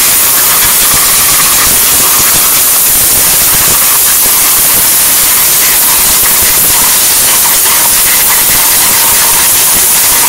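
Coolant spraying inside a twin-turret CNC lathe's enclosure while it machines a part: a loud, steady hiss.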